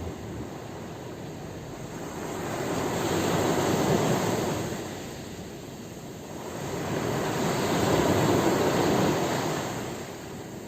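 Sea waves rolling in and washing on the shore, in two slow surges of surf about four seconds apart.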